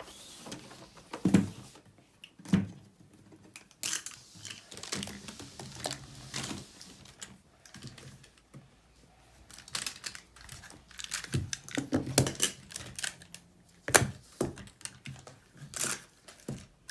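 Plastic magnetic building tiles clicking and clacking against each other in an irregular run of sharp taps as they are handled and snapped together.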